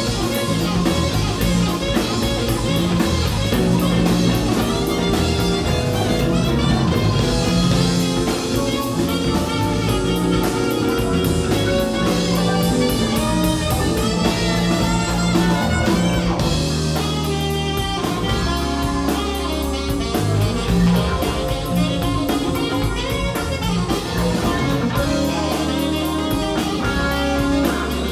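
Live band playing a blues-flavoured groove: electric guitar and drum kit over bass and keyboards, with an alto saxophone line. The band plays steadily throughout, with no break.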